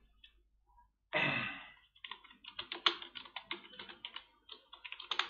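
Typing on a computer keyboard: after a short burst of noise about a second in, a fast, irregular run of key clicks from about two seconds in.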